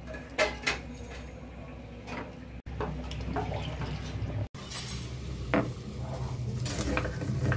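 Whole spices being dry-roasted and ground by hand, in three short stretches. First a few sharp clicks as cumin seeds are tipped from a steel bowl onto cloves, cardamom, cinnamon and bay leaf in a dry iron pan, then a wooden spatula scraping as it stirs them. Last comes a scraping and crushing on a grinding stone, with a few sharper clicks.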